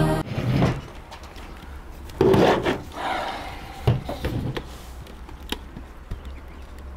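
A dry-erase whiteboard being handled against a tabletop: a few scattered rubs and light knocks, with the longest scrape a couple of seconds in and small clicks later on.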